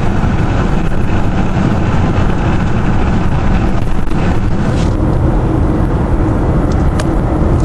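Detroit Diesel Series 60 turbocharged inline-six diesel in a truck tractor running steadily, with a few short clicks about seven seconds in.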